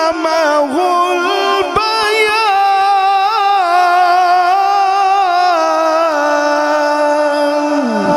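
A man's voice reciting the Quran in the melodic tajweed style, amplified through a microphone. He holds long notes ornamented with wavering melismas, then settles on one long steady note that slides downward near the end.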